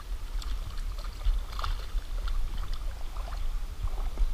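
Hooked smallmouth bass splashing and thrashing at the river surface: short irregular splashes over a low steady rumble.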